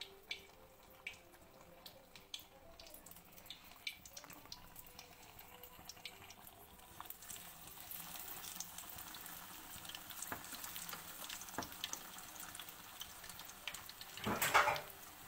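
Batter-coated spinach and chicken cutlets sizzling in hot oil in a karahi: a fizzing hiss that starts about halfway through and grows. Before it come small wet clicks of hands working the batter, and a brief louder burst near the end.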